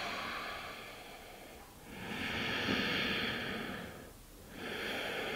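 A woman's slow, deep breathing: two long audible breaths, each about two seconds, the second starting about four and a half seconds in.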